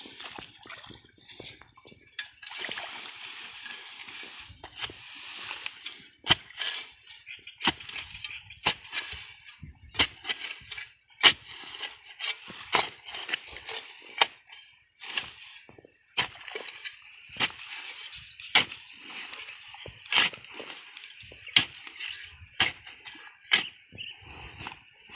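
Repeated sharp strikes, roughly one a second, over a steady hiss.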